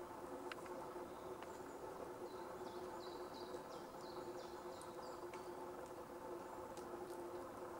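A bird gives a quick series of short, high chirping notes a couple of seconds in, lasting a few seconds. A few faint ticks are heard over a steady low hum.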